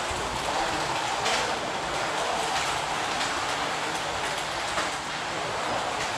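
Several 1:32-scale Carrera Digital 132 slot cars lapping a plastic track together: a steady whir of their small electric motors and urethane tyres on the track, with a few light clicks.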